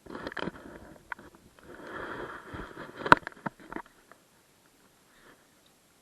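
Hard plastic scraping and rubbing in irregular bursts, with one sharp click about three seconds in, as the hair dryer's housing is handled and worked open; it stops a little before four seconds.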